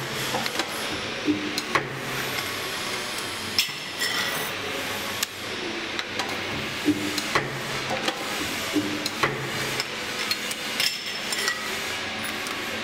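Pedestal spot welder's copper electrodes closing on a steel pan-shaped part and firing repeatedly. Each weld is a sharp clack with a brief hum, and the welds often come in pairs about half a second apart. Clinks of the metal part being turned and set between the electrodes come in between.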